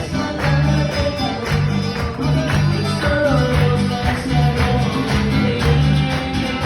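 Band music: an upbeat Latin-style song with guitar and tambourine over a steady beat.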